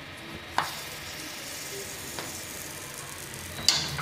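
Wheat-flour pancakes sizzling in ghee on a hot non-stick tawa as they are flipped with wooden spatulas, with two sharp knocks of wood on the pan, about half a second in and, louder, near the end.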